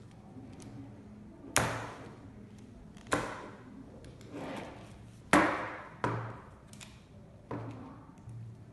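Terra Hiker carbon trekking poles and their plastic flip-lock and basket parts being handled on a wooden tabletop: five sharp clacks, irregularly spaced, each ringing out briefly.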